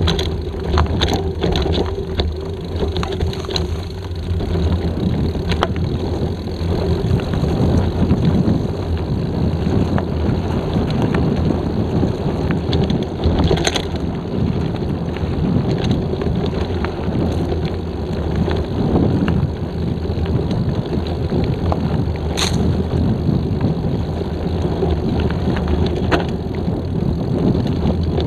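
Mountain bike ridden fast on a dirt forest trail, heard from a camera mounted on the bike or rider: a steady low rumble of wind on the microphone and tyres on dirt, with the bike rattling and scattered sharp clicks and knocks as it hits bumps and roots.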